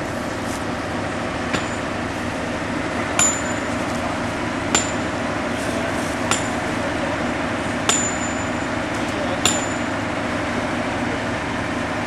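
Hammer blows on metal: six ringing clinks, evenly spaced about a second and a half apart, over a steady engine drone.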